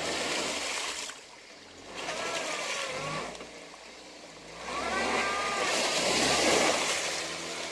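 Car engine revving in three surges while rushing, splashing water noise swells with each, as a car pushes through a ford.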